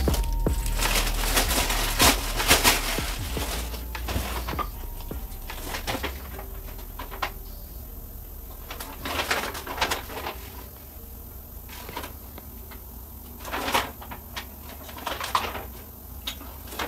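Plastic packaging crinkling and light clicks of chrome metal tubes and fittings being handled while a space-saver shelf is put together; busiest in the first few seconds, then a few short rustles.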